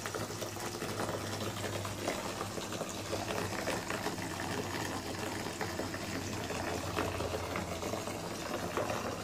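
Water running steadily into a bathtub from the tap, with a steady low hum underneath.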